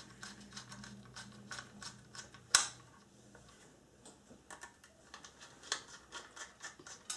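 Faint small metallic clicks and ticks of a screwdriver driving small screws into an SSD's mounting bracket, with one sharper click about two and a half seconds in.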